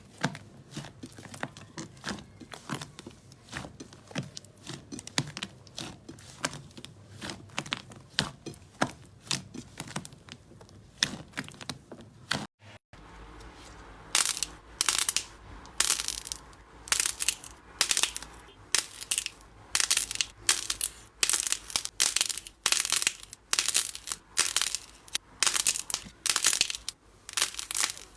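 Slime being handled, squeezed and pressed, making many small crackles and pops. After a short break about twelve seconds in, louder crinkly crunches come in quick repeated strokes.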